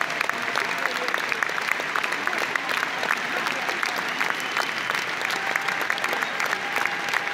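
Large concert audience applauding: dense, steady clapping from many hands.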